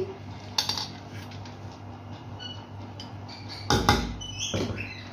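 Kitchen handling sounds from a metal cooking pot while biryani is being layered: a light knock about half a second in and a louder clatter about four seconds in, with a few short high squeaks between.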